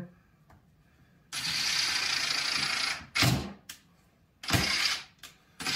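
Ridgid cordless driver driving a screw into plywood: one run of a little under two seconds starting about a second in, then three short trigger pulls.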